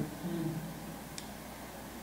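Quiet room with a short murmured voice at the start and one faint click about a second in, from the PCP air pistol being handled.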